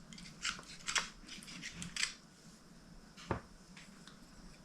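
Light clicks and small scrapes of metal pedal parts and tools being handled on a work surface, a few scattered taps with one sharper click past the three-second mark.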